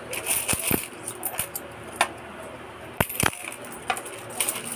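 Cleaver-style kitchen knife cutting papaya skin away on a wooden chopping board: scattered sharp knocks and clicks of the blade on the board, with a few short scrapes near the start and near the end.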